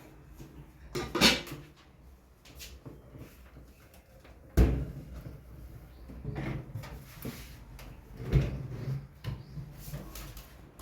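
Household objects or furniture being handled and moved: three sharp knocks, the loudest about halfway through, with scraping and rustling between them.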